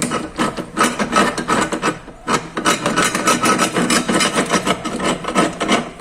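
Rapid, continuous scraping strokes of a tool on the metal of a starter motor, working at its rusty, dirty housing.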